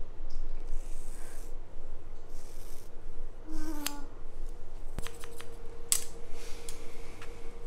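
Steel hair-cutting scissors cutting through a thick ponytail of long hair in several separate strokes, each a short rasping snip, with a few sharp clicks of the blades.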